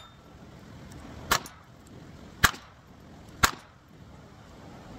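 Three sharp clicks about a second apart as .22 rounds are loaded one by one into the magazine of a Savage Model 187N rifle.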